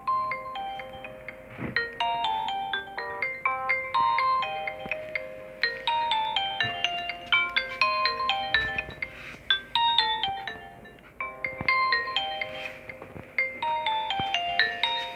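Nokia N70 mobile phone playing a polyphonic ringtone: a fast melody of short synthesized notes, its phrase repeating every few seconds.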